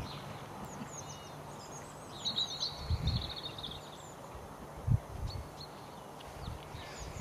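Small birds chirping and singing, with a buzzy trill about two seconds in. A few brief low thumps come through underneath.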